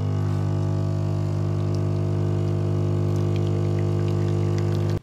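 Automatic coffee machine's pump humming steadily while it dispenses coffee into a cup, with faint small ticks above the hum; the hum stops abruptly at the end.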